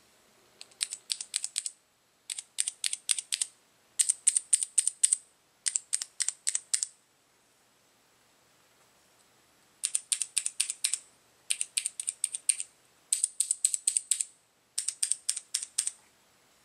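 Keys on a Max Keyboard Durandal G1NL mechanical keyboard with Cherry MX Brown switches being typed in quick runs: eight bursts of rapid clacks, each about a second long, with a pause of about three seconds midway.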